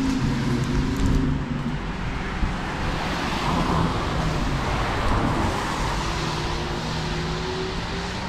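Road traffic on a wet street. One vehicle's engine hum fades over the first couple of seconds, then tyre hiss swells and fades as another vehicle passes around the middle, and a fainter engine hum follows near the end.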